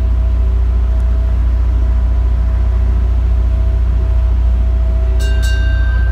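Steady low rumble; about five seconds in, two short electronic beeps sound, followed by a held tone.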